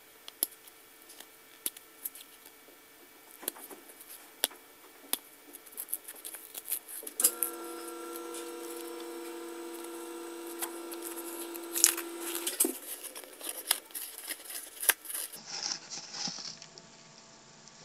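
Paper wrapping being torn and peeled by hand off a Roman candle's cardboard tube: scattered sharp rips, crinkles and clicks. A steady hum runs for about five seconds in the middle.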